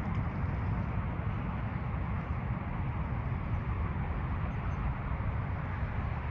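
Steady wind buffeting the microphone, a continuous low rumble with a fainter rushing hiss above it.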